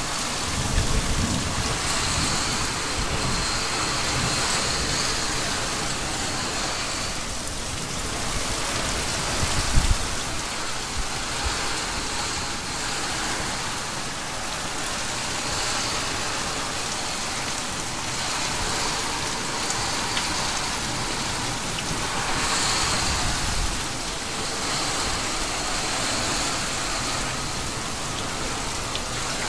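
Heavy rain pouring steadily onto corrugated metal roofs. There are brief low rumbles about a second in and again, loudest, about ten seconds in.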